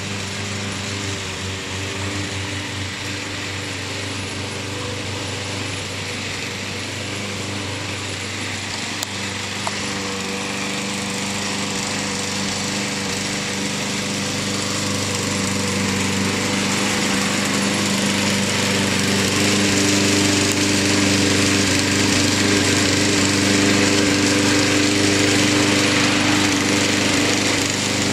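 Walk-behind gas lawn mower running steadily while being pushed over grass, a continuous engine hum that grows louder through the middle as the mower comes closer.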